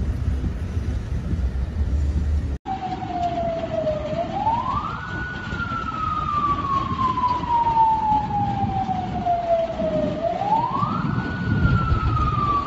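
A siren wailing: each cycle sweeps quickly up in pitch and then falls slowly for about five seconds, beginning about two and a half seconds in and rising again near the end. Before it starts there is a low rumbling noise.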